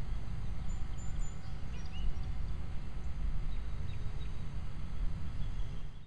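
Wind rumbling on the microphone, with a few faint bird chirps over it; the sound cuts off at the end.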